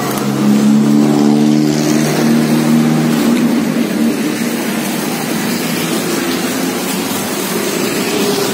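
An engine running steadily with a low, even hum, loudest in the first three seconds and then fading back under a constant background rumble.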